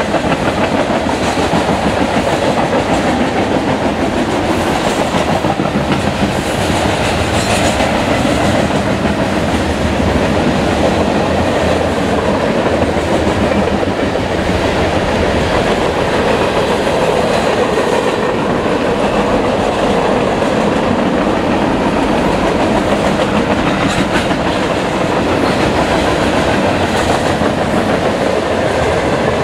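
A freight train's cars (tank cars, boxcars, covered hoppers) rolling past close by: a loud, steady wheel-on-rail noise with occasional clicks as wheels cross the rail joints.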